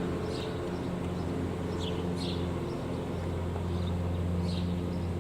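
A steady low mechanical hum with even overtones, like an idling engine, with a few short high chirps over it.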